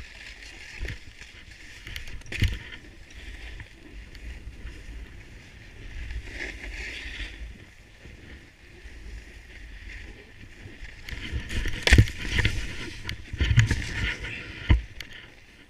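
Snowboard sliding and scraping over packed snow, a steady rough hiss. Several hard thumps from about twelve seconds in as the board lands off bumps and the rider falls into the snow.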